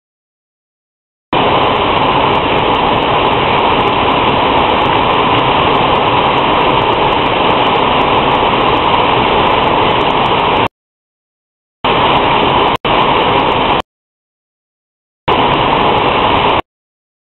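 Rain falling, picked up as a steady hiss through a CCTV camera's microphone. The sound cuts out completely several times.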